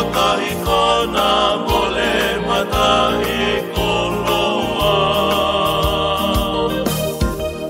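A Tongan song: sung vocals over musical accompaniment with a steady beat.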